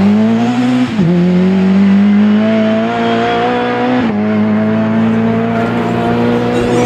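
Rally car engine accelerating hard, its pitch climbing and then dropping sharply twice, about a second in and about four seconds in, as it shifts up through the gears.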